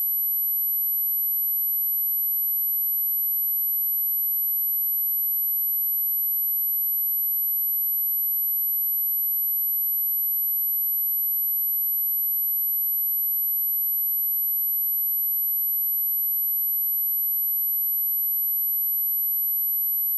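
Steady electronic sine-wave test tone at 11808 Hz, a single unwavering high-pitched whistle, played to test or clear dust and water from a speaker.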